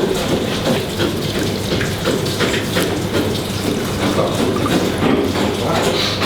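Water splashing and running, with scattered knocks and clatter throughout.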